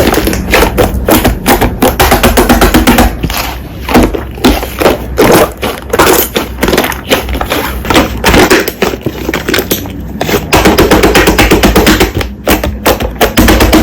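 Slime being squeezed and poked, giving a fast, irregular run of sticky clicks and pops, with background music under it.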